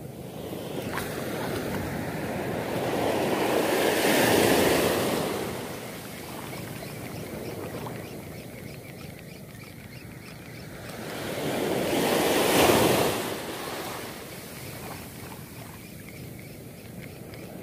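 Surf washing up on a sandy beach, with two waves surging in, about four and about twelve seconds in, each swelling and then fading back.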